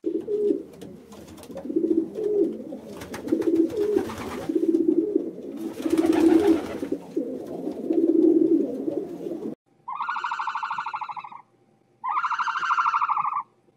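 Domestic pigeons cooing, phrase after phrase. About ten seconds in this gives way to three long, buzzy, pulsing calls of about a second and a half each, separated by short gaps.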